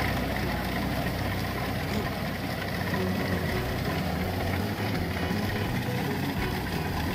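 Kubota rice combine harvester's diesel engine running steadily, with the threshing machinery whirring, as it cuts and threshes rice.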